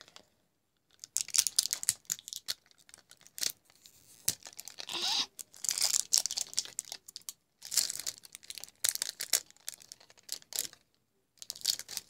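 Plastic wrapping on a toy package being torn and crinkled by hand, in irregular crackling bursts with short pauses between them.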